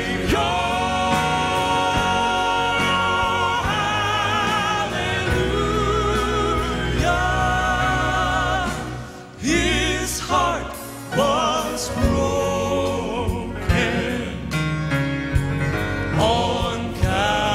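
Male gospel vocal quartet singing sustained close-harmony chords with vibrato. About nine seconds in the sound dips briefly and a single voice swoops up and down before the harmony returns.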